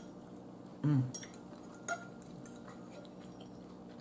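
Fork clicking and scraping against a bowl as noodles are twirled and lifted, a few light clicks in all. About a second in, a short hummed voice sound.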